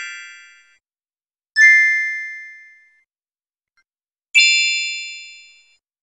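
Magic chime sound effects: bright bell-like dings, each struck once and ringing out for about a second. One fading as it begins, then a new ding about one and a half seconds in and another just past four seconds.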